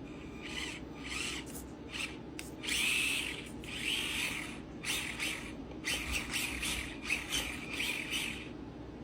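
Axial SCX24 Deadbolt 1/24-scale RC crawler's small brushed motor and gears whirring in a string of short bursts as the throttle is blipped, with a longer burst about three seconds in.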